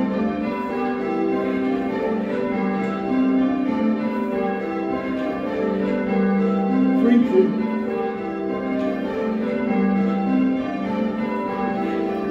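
A ring of six church bells, a 1978 Whitechapel six with the tenor in G, ringing call changes: each bell struck in turn in an even, unbroken rhythm, heard from the ringing chamber beneath them.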